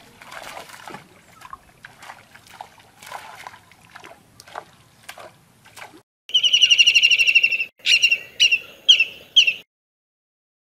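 Faint splashing and sloshing of pond water as a cast net is handled, for about six seconds. Then, after a short gap, a loud high bird call: a rapid trill lasting about a second and a half, followed by four short sharp calls.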